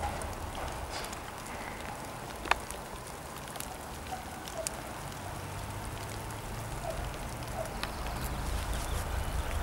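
Distant rumble of an approaching ChME3 diesel shunting locomotive, low and growing louder over the last few seconds, with scattered light ticks and one sharp click about two and a half seconds in.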